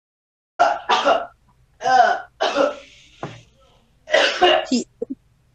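A person coughing and clearing their throat in several short bouts, gagging after swallowing a raw egg.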